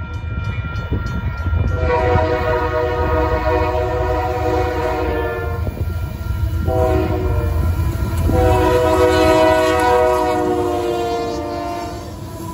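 Union Pacific diesel locomotive's air horn blowing a long blast, a short one and another long one, ending a grade-crossing horn signal. A low diesel rumble runs underneath and grows louder as the loaded coal train comes up and passes close by near the end.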